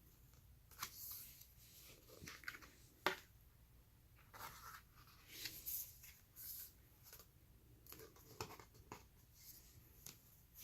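Pages of a sturdy board book with cutouts and flaps being turned and handled: faint scattered rustles and light taps, with one sharper tap about three seconds in.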